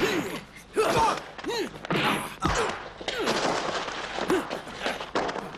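Film fight: men's grunts and shouts mixed with the thuds of punch and body-fall sound effects, the heaviest thud about two and a half seconds in.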